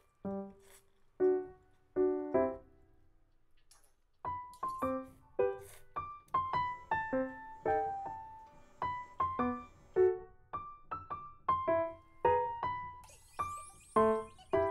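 Gentle piano background music. A few notes open it, there is a short pause, and from about four seconds in the notes run on steadily. A high shimmer comes in near the end.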